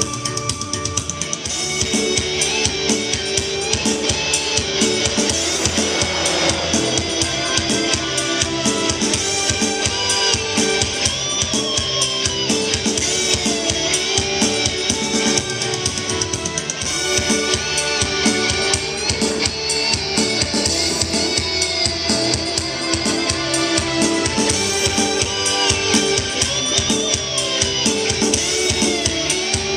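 Music with a steady drum-kit beat played loud through a sound-check tower speaker with two El Sound 8-inch mid-low woofers and a horn. The music comes from a phone's MP3 player through a home-built power amplifier, with no equaliser.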